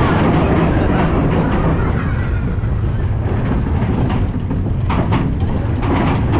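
Mine-train roller coaster running along its track: a steady low rumble of the cars and wheels, with a few short clacks about five seconds in.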